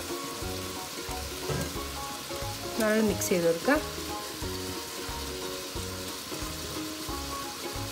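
A small whisk stirring a pot of milk heating on the stove, with a steady hiss, under background music with a steady beat. About three seconds in, a brief louder sliding tone stands out.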